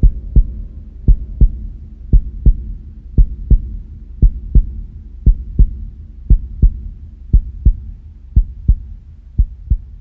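Heartbeat-like double thumps, a pair about every second with the two beats a third of a second apart, over a steady low hum.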